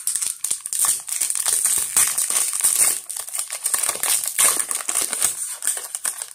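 Foil Pokémon booster pack (Evolutions) being torn open by hand, the foil wrapper crinkling and crackling continuously until the cards are out.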